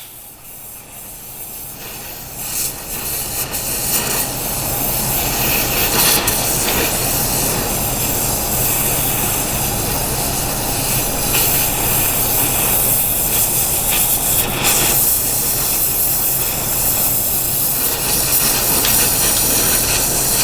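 Oxy-acetylene torch flame hissing steadily as it heats a rusted, seized nut toward cherry red to free the bolt. The hiss builds over the first few seconds, then holds.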